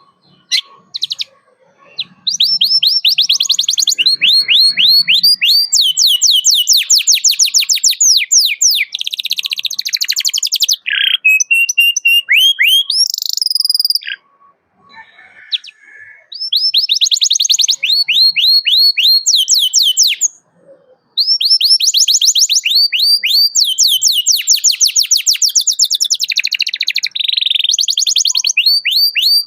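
Domestic canary singing in full song: long, fast rolling trills of repeated high chirps, phrase after phrase, broken by two short pauses around the middle and about two-thirds of the way in.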